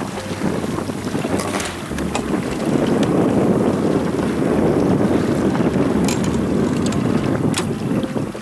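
Wind buffeting the microphone over water rushing along the hull of a small motorboat under way. A few short sharp clicks come through it.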